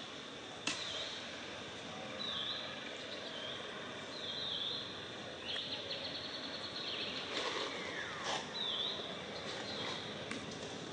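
Outdoor forest ambience: a steady hiss with short high chirps repeating every second or two, a single sharp click about a second in, and a falling call around eight seconds in.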